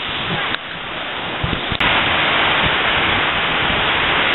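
Water rushing over a river weir, a steady hiss of white water. It is quieter for the first two seconds, with a sharp click about half a second in and another just before two seconds; after the second click it is louder.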